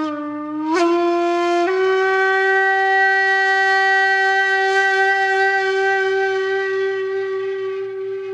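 A warning siren sounding one long, loud, steady tone. It steps up in pitch twice in the first two seconds, then holds and begins to fade near the end.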